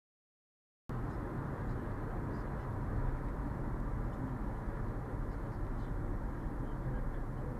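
Steady road and engine rumble inside a moving car on a highway, picked up by the dashcam microphone; it starts abruptly about a second in.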